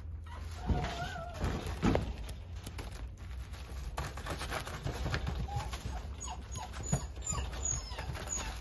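Shiba Inu puppy moving about on artificial grass: light scuffs and taps of its paws, with a short rising whine about a second in, over a steady low hum.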